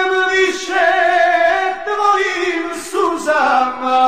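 Serbian folk song recording: a slow melody of long held notes, wavering with vibrato near the end, with no bass or drums underneath.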